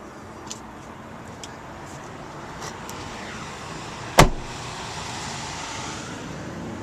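Truck cab's rear sliding window being worked: a few light clicks, then a single sharp thump a little over four seconds in, with a steady hiss throughout.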